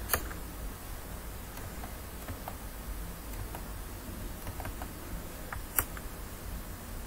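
Two sharp computer mouse clicks, one just after the start and one near the end, with a few faint ticks between, over a low steady hum.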